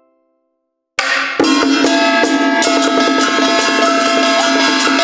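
Lively festive music with drums and cymbals in a quick, steady beat under held melody notes. It starts suddenly about a second in, after a moment of silence.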